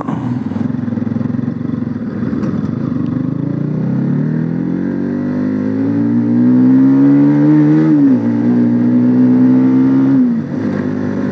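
Bajaj Pulsar NS motorcycle engine accelerating hard during an overtake. The pitch climbs steadily for a few seconds, then drops about eight seconds in as it shifts up, holds, and drops again near the end.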